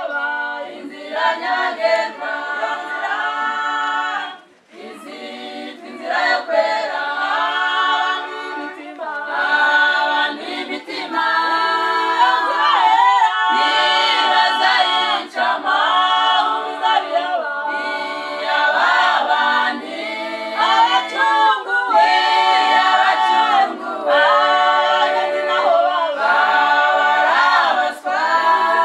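Unaccompanied choir singing, several voices in harmony with no instruments, breaking off briefly about four seconds in before carrying on.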